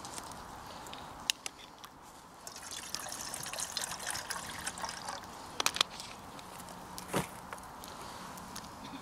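Water being poured and trickling for a few seconds, with a few sharp clicks and knocks; the loudest comes about seven seconds in.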